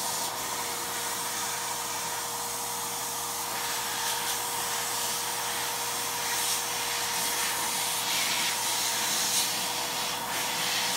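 Wagner Home Decor paint sprayer's HVLP turbine power unit running steadily, blowing air out through the hose and spray gun, with a steady hum in the air rush.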